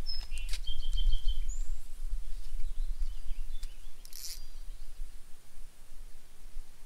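Outdoor ambience: a steady low rumble, a few short bird chirps in the first couple of seconds, and some faint clicks.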